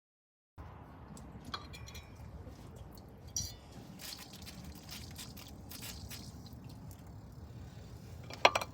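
Light clicks and clinks of metal brake parts being handled, with a sharper click near the end, over a low steady background hum. The sound starts abruptly about half a second in after dead silence.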